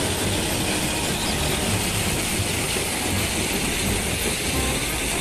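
Caterpillar 966F wheel loader's diesel engine running steadily with its bucket raised, a loud even mechanical noise.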